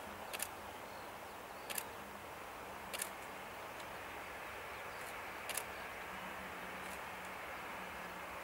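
Steady distant hiss of a Boeing 737-800's CFM56-7B jet engines at low taxi thrust, with about five sharp single clicks at uneven intervals over it.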